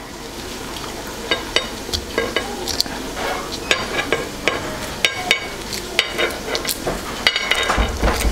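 Hard-boiled eggshells cracking and being picked off with a knife and fingers, giving irregular sharp clicks and crackles, several a second. Under them runs a steady sizzle from sauce frying in a pan.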